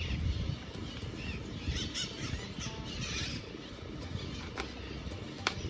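Black plastic bag rustling and crinkling as it is handled and unwrapped from a wooden bee bait box, with a sharp click near the end.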